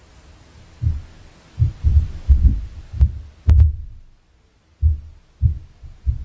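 Impact noise from the flat above, coming through the ceiling as about ten dull, low thumps of footsteps and thuds at an irregular pace, with a pause about four seconds in. A short sharp click sounds about three and a half seconds in.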